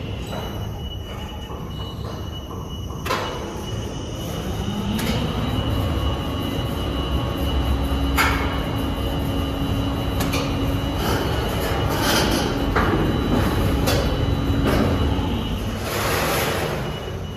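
Mechanical car-parking system's pallet with built-in turntable rotating a car: a steady electric-drive hum rises in pitch about four seconds in and holds, over a low rumble of steel machinery. A few sharp metallic clanks come through along the way.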